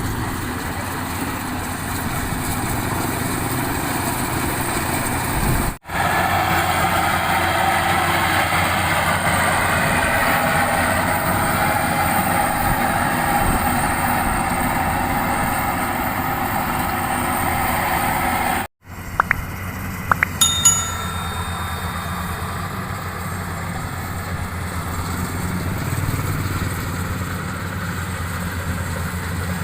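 Bimo 102 rice combine harvester's engine running steadily, with a rattling mechanical noise over it. The sound drops out sharply twice, about six seconds in and again past the middle, and a few sharp clinks follow the second break.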